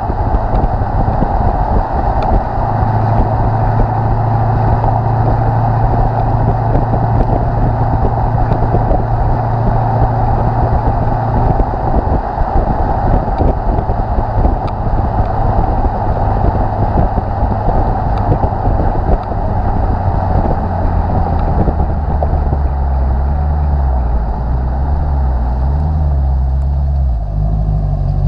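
The Lexus IS F's 5.0-litre V8 heard at the tailpipes through an X-Force cat-back exhaust with stock headers, running steadily while the car drives, over road and wind noise. About two-thirds of the way through the engine note drops lower and shifts in steps, and the wind noise fades near the end.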